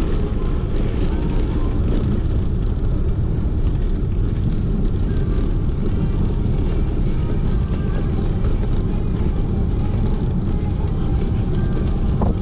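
Steady low rumble of wind buffeting an action camera's microphone during a fixed-gear bicycle ride.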